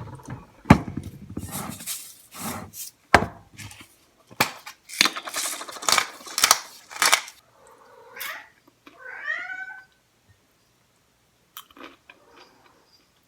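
A run of crunching and rattling noises, then a cat meowing twice, about eight and nine seconds in.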